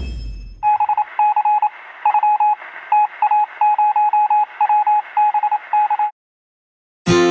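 A deep boom with a bright swish, then a single-pitch beep keyed on and off in short and long groups over radio-style hiss, like Morse code, for about five seconds. It cuts off suddenly, and acoustic guitar music starts near the end.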